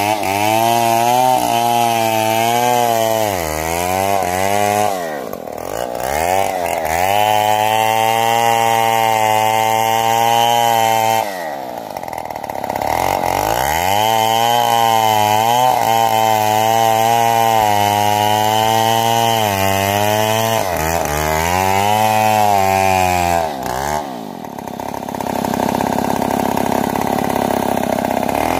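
Stihl MS070 two-stroke chainsaw running at high revs in long steady stretches. Its pitch drops sharply and climbs back three times: about four seconds in, near the middle, and near the end.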